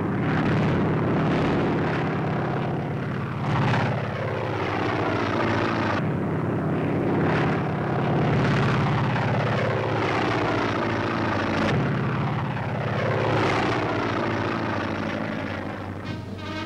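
Piston-engined Navy fighter planes diving and passing low, one after another, their engine pitch falling as each goes by.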